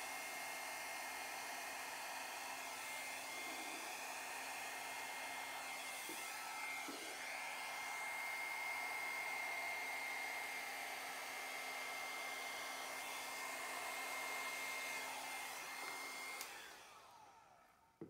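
Hand-held hair dryer with a narrow nozzle blowing steadily, a rush of air with a high whine. It is switched off near the end, and the whine falls away as the motor spins down.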